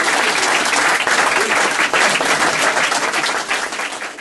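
A crowd applauding, a dense patter of many hands clapping that tails off near the end.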